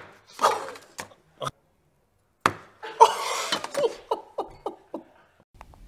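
A sharp clack at the start and a few light knocks, then two men break into laughter about three seconds in, a run of short 'ha-ha' bursts.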